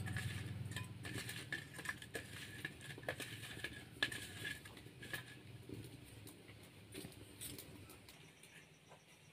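Small whole fish being mixed by hand with turmeric and spices in a steel bowl: soft wet squelching with light clicks of fish and bangles against the metal bowl, dying away in the last second or two.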